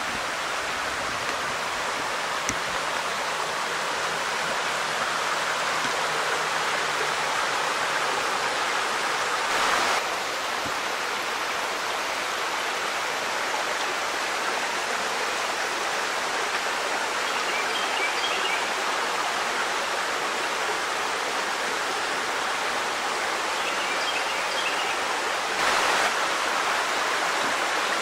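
Shallow creek rushing steadily over rocks in riffles, with two short louder swells, about ten seconds in and a couple of seconds before the end.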